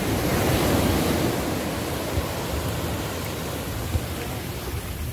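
Small sea waves breaking and washing up a sandy beach, a steady rushing that swells over the first second or so and then eases, with some wind rumble on the microphone.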